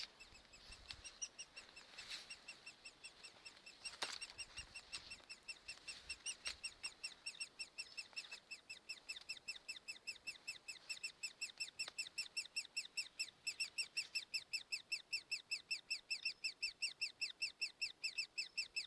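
Woodpecker nestlings begging from the nest: a fast, steady series of short high chirps, about five a second, faint at first and growing louder and more regular after the first few seconds. A sharp tap sounds about four seconds in.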